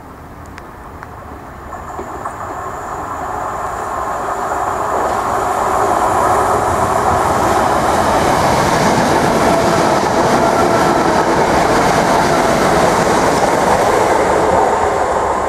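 Southern Class 377 Electrostar electric multiple unit approaching and passing, its sound growing louder over the first six seconds and then holding steady as it runs by. Wheels clatter on the track under a thin, steady high whine.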